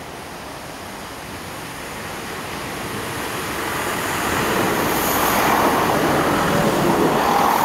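Train passing close by: a rushing rumble that swells over several seconds and is loudest near the end.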